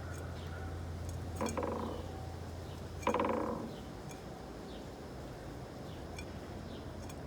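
Backyard birds calling: short, high, falling chips recur about once a second. Two louder, harsher calls come about a second and a half apart, under a steady low hum that fades out about halfway through.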